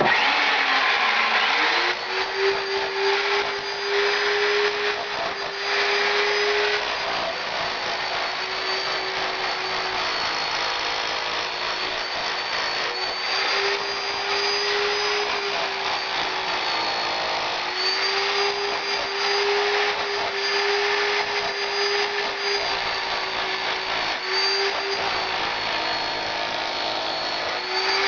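Handheld electric power tool stripping old plaster from a wall. Its motor spins up near the start, then runs on steadily, the pitch dipping briefly and recovering as the tool bites into the plaster.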